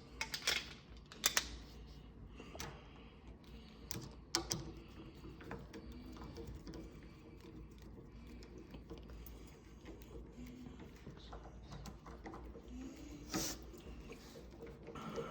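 Scattered clicks and light knocks of a screwdriver working the screws of a door knob latch plate into the door edge, a few sharper ones in the first four seconds and another near the end, over a faint low hum.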